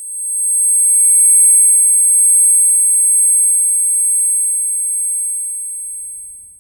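Ear-ringing (tinnitus) sound effect: a steady, very high-pitched whine made of a few pure tones, swelling in over the first second and fading out near the end.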